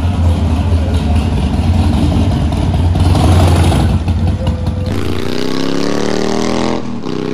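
Harley-Davidson Iron 883's air-cooled V-twin engine running close by with a deep rumble as the bike is ridden off. About five seconds in, the rumble gives way to a smoother tone that rises slowly in pitch.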